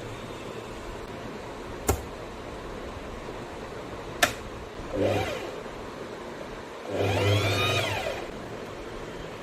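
Singer Heavy Duty sewing machine's motor run in two short bursts, whirring up in pitch and back down, the second one longer and louder. Two sharp clicks come before them, over a steady hum.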